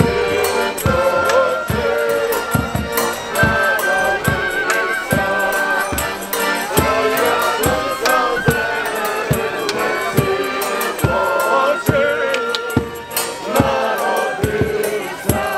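A marching group singing a Ukrainian Christmas carol (koliadka) together, with live instruments and a bass drum beating steadily about twice a second.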